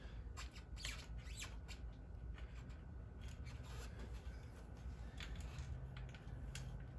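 Irregular light scrapes, rubs and clicks of a motorcycle's carburetor bank being handled and pushed against its rubber intake boots while the carbs are lined up, over a low steady hum.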